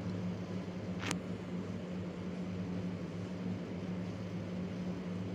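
Onion-tomato masala puree sizzling in hot oil in a kadai while being stirred with a steel ladle, over a steady low hum. One short clink about a second in.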